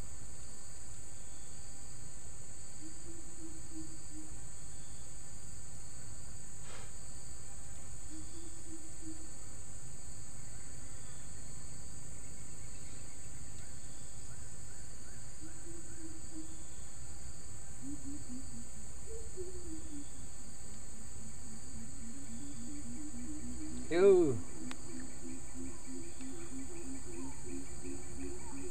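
Insects droning steadily at a high pitch in forest, with a few short low calls. Later a low, pulsing two-note hum sets in and runs on. It is broken once by a brief, louder sweeping sound.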